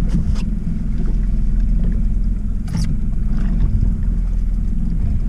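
Outboard motor running steadily at trolling speed, a low even hum, with a couple of short light clicks on the boat.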